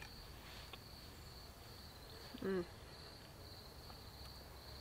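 Faint steady high chirring of insects in the evening woods. About halfway through comes one short, wavering voice-like sound.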